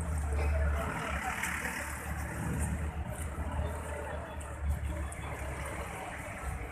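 Motor vehicle engine running at low speed with a steady low rumble, heard from the vehicle itself, under general street noise.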